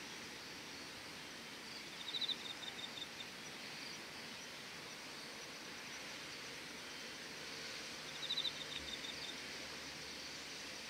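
Evening insects such as crickets chirring steadily over a soft outdoor hiss. A short, fast trill of chirps stands out twice, about two seconds in and again about eight seconds in.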